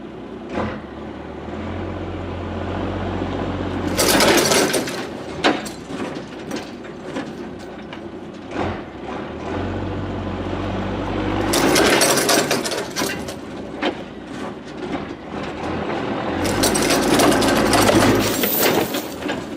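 Pickup truck engine revving under heavy load three times as it strains on a chain to pull a tree out of the ground. Each pull builds from a low engine drone to a loud rush of noise.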